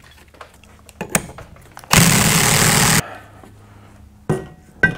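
A power tool runs in one loud burst of about a second, starting and stopping sharply, between light clinks of metal brake parts being handled.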